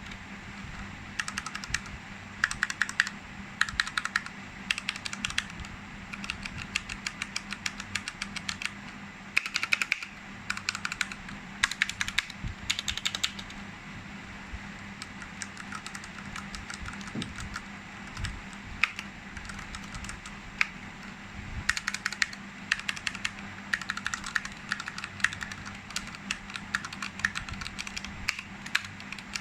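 Typing on a Ducky One 2 Mini 60% mechanical keyboard with tactile, non-clicky Cherry MX Brown switches. The keys are struck in quick bursts of rapid keystrokes, and for a stretch in the middle the keystrokes thin out to only a few.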